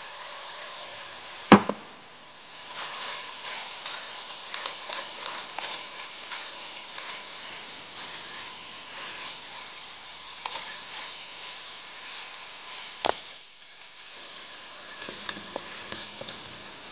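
Pork adobo sizzling in a wok as it is stirred with a wooden spatula: a steady hiss with small scrapes and clicks of the spatula. The spatula knocks sharply against the wok about a second and a half in and again about three quarters of the way through.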